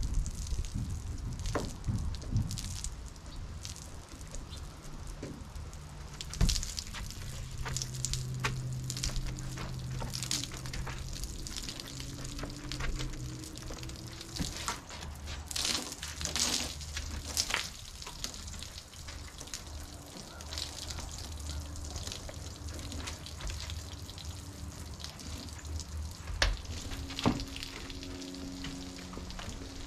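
Microfiber wash mop on an extension pole scrubbing soapy water over a truck's painted cab: wet swishing strokes with splashes and drips, and a few sharper knocks.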